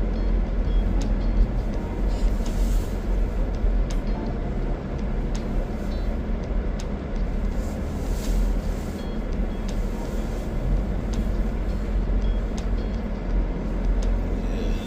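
Steady rumble of a car heard from inside the cabin as it drives along snowy streets, with faint music playing.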